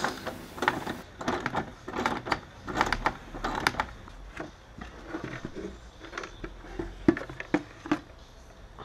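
Ratchet spanner undoing the 10 mm bolts on a plastic air filter housing: irregular clicking and knocking of the tool, the bolts and the plastic. The housing is shifted and lifted free near the end.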